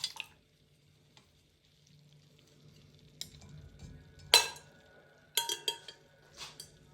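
Kitchen utensils clinking against a strainer and glass while garlic milk is strained: a few light clinks about three seconds in, one sharper ringing clink a little after four seconds, and a quick run of clinks around five and a half seconds.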